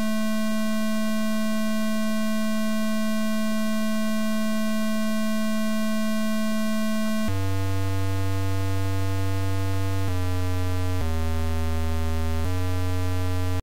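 A DOS virus payload's sound effect played as electronic square-wave beep tones. One steady tone is held for about seven seconds, then four shorter, lower tones follow, each changing pitch every second or so, before the sound cuts off suddenly.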